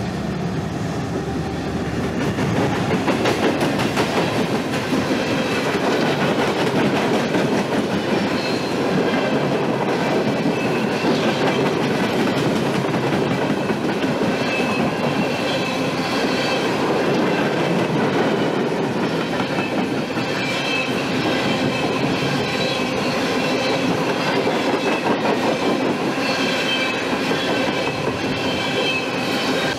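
Norfolk Southern freight train's cars rolling past steadily on steel wheels and rails, with a high wheel squeal that comes and goes.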